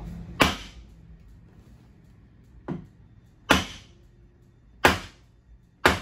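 Hammer blows on a nut threaded flush with the top of a golf cart's steering shaft, five sharp strikes roughly a second apart, the second one lighter, each with a brief ring. The blows are meant to jar loose a steering wheel pressed onto the splined shaft, which has not yet come off.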